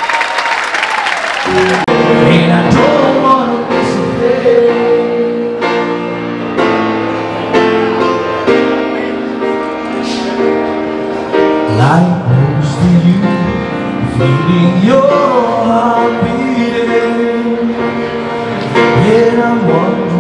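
Audience applause that cuts off after about a second and a half, then a grand piano playing with a man singing along into a microphone.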